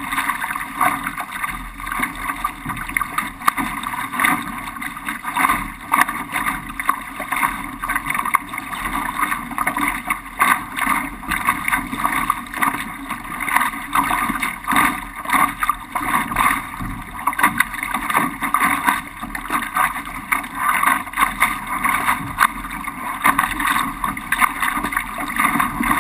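Laser dinghy's hull planing through choppy water: a steady rush of water with uneven splashes of spray and chop against the hull, and wind buffeting the microphone.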